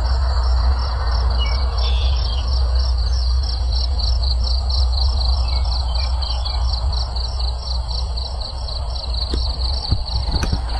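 Insects chirping in an even pulsed trill, about four pulses a second, over a steady low rumble, with a few short bird chirps.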